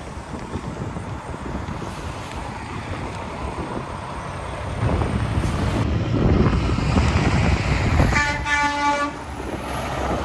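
Road traffic, growing louder about five seconds in as a heavy truck passes, then the truck's horn sounds one steady note for about a second.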